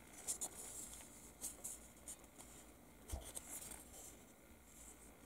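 Faint scratchy rustles and light clicks of fingers handling a grey plastic 1/35 scale T-55 model turret, with a soft knock about three seconds in.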